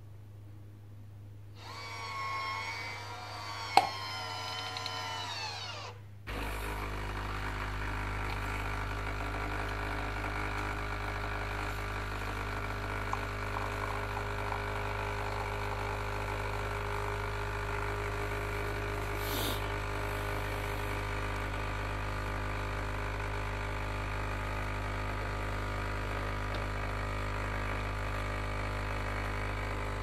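De'Longhi Eclipse Dolce Gusto capsule machine brewing. A pitched whine wavers for about four seconds, then after a brief dip the pump settles into a steady, louder buzz with a low hum as it pushes water through the capsule.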